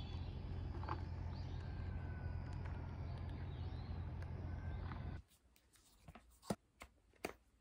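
Outdoor ambience: a steady low hum with faint bird chirps, which cuts off about five seconds in. Then a few sharp clicks and taps as a tablet's folding cover is handled and opened.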